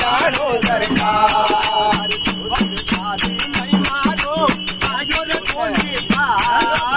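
A group of men singing a Rajasthani-language devotional bhajan together, with jingling hand percussion keeping a quick, steady beat.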